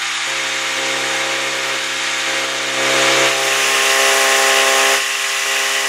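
Boat outboard motor running at a steady speed under way, with a steady rushing noise of wind and water over it.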